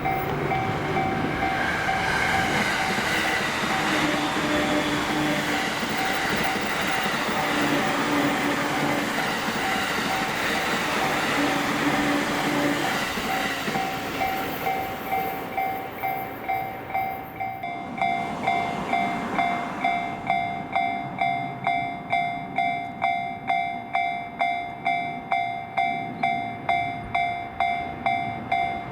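Japanese level-crossing warning bell ringing steadily, about two strokes a second, while a train rumbles through the crossing. The train noise fades out about two-thirds of the way in, leaving the crossing bell ringing on its own.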